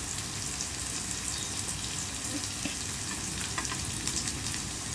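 Onion, ginger and garlic sautéing in oil in a pan, a steady sizzle with scattered small crackles.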